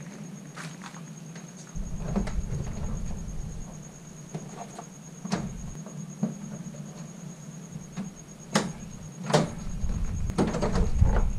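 Scattered plastic clicks and knocks as a Mitsubishi Mirage's front bumper cover is pushed back into place and its clips snapped in, the sharpest ones about two thirds of the way through and near the end. A thin steady high tone sits behind them.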